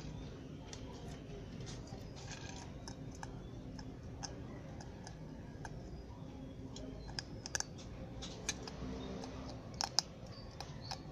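Irregular sharp clicks of dry chicken-feed pellets against a steel bowl as a bearded dragon bites at them, sparse at first and thicker and louder in the second half.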